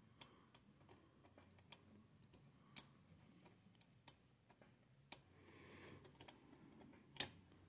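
Sparse, irregular small clicks and taps, a louder one about three seconds in and another near the end, as the pins of a desoldered STK power output IC are prodded on the circuit board to check they are free of their solder pads.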